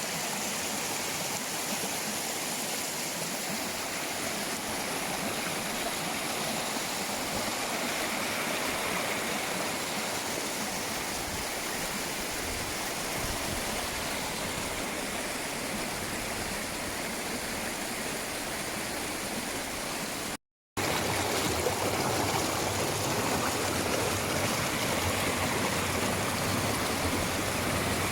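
Mountain waterfall and stream rushing steadily. The sound cuts out for a moment about two-thirds of the way through, then comes back a little fuller and deeper.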